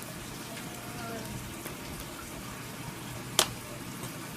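One sharp crack of wood being chopped by hand, about three and a half seconds in, over a steady background hiss.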